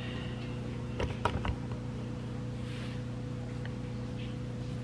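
A few light clicks about a second in, from the cap of a seasoned-salt bottle being handled, over a steady low hum.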